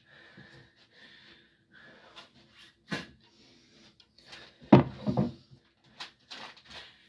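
Dull thumps and rustling as a person moves about on and around a bed with a large stuffed toy: one knock about three seconds in, then a cluster of three louder thumps around five seconds, and a few softer knocks after that.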